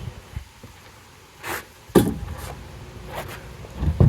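A few heavy metal clunks and knocks as a tractor backhoe attachment settles onto a homemade rolling cart. The loudest is a sharp ringing clunk about two seconds in, with another near the end.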